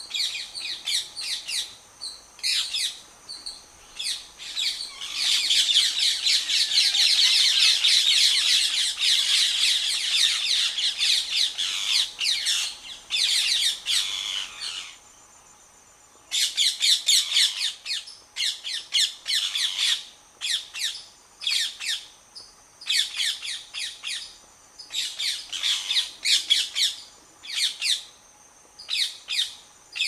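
Rose-ringed parakeets giving harsh, rapid screeching alarm calls while mobbing a monitor lizard at their nest hole. A long unbroken stretch of screeching starts about five seconds in; after a short pause the calls come in quick separate bursts.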